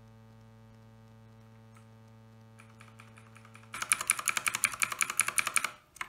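Outemu Blue clicky mechanical key switches pressed in quick succession, a fast run of sharp clicks at about ten a second for two seconds. Before it, a steady electrical mains hum runs and then stops as the clicking begins.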